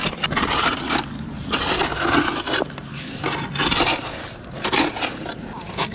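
Gravel and stones scraping and clattering as a gloved hand and shovel dig through a rocky mud beach for clams, in repeated bursts of about a second.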